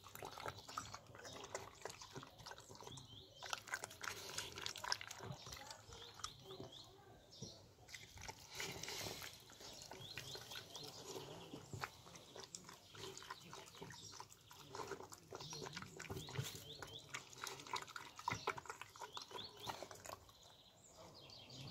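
A dog eating porridge out of a metal bucket: many quick, irregular smacks and clicks of chewing and lapping, easing off near the end.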